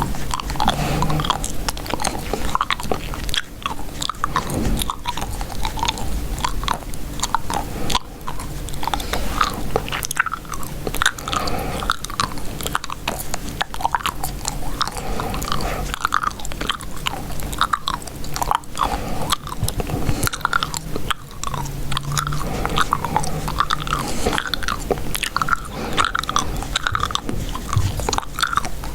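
Gum chewed close to the microphone: continuous wet smacking and clicking chews with no pauses.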